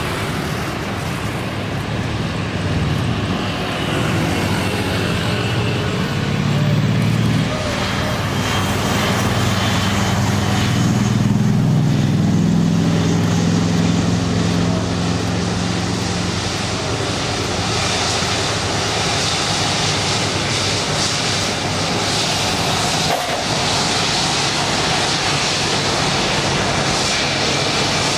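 Continuous engine noise of a jet airliner mixed with road traffic, with a broad jet hiss filling in from about halfway through.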